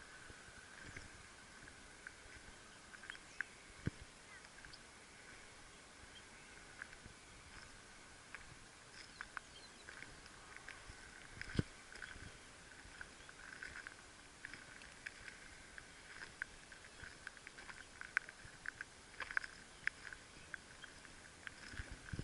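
Faint outdoor ambience: a steady high chirring from animals, likely insects or birds, with many scattered small clicks and crackles.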